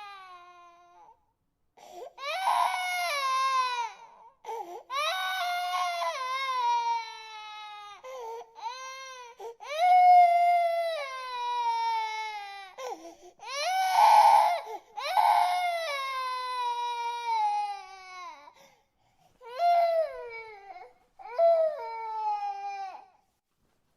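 An infant crying hard in a string of high wails, each a second or two long and mostly falling in pitch, broken by short catches of breath.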